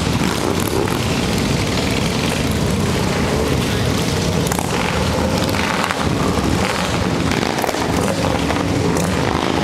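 Many cruiser and touring motorcycles idling and pulling away one after another, a loud, steady rumble of exhaust from the whole pack.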